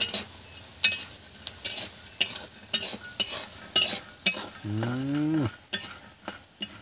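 Metal spatula scraping and knocking against an iron kadai as red peanuts are stirred while frying in oil, about two strokes a second. A short voice-like sound falls in pitch about five seconds in.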